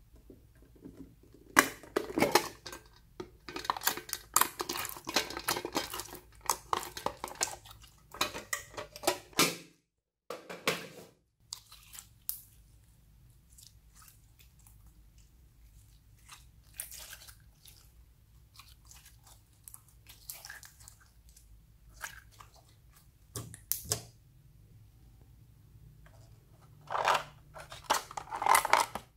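Hands squeezing and squishing slime, making crackling squelches that come thick and fast for the first ten seconds, then sparse and quieter. Near the end a plastic pencil case is handled and opened with a louder clatter.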